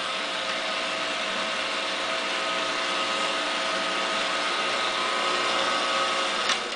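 Small battery motor of a Splashers rotating toy fishing game running, a steady whir with a hum of several even tones from the motor and its plastic gears. It cuts off near the end.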